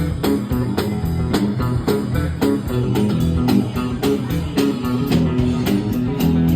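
Live rock band playing: electric guitar and bass guitar over a steady drum beat.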